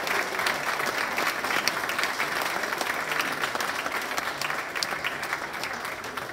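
Audience applauding, a dense patter of hand claps that gradually dies down.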